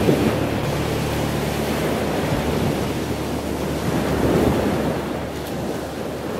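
Motorboat engine droning low and steady as the boat moves away, fading out about two seconds in, under steady wind and water noise.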